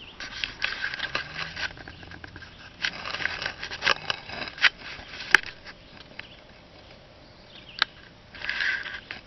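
Irregular scraping and rustling handling noise with several sharp clicks, the sharpest about five seconds in, and a quieter stretch before a last burst of rustling near the end.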